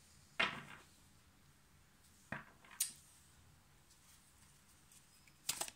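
Tarot cards being handled: a short rustle about half a second in, a sharp click a little after two seconds, and a quick run of card clicks near the end, with quiet room tone between.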